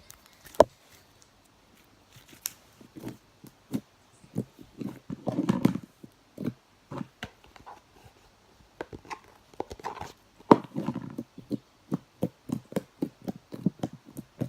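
Slime being squeezed and poked by hand, giving irregular wet clicks and pops, with denser squelching stretches about five and ten seconds in.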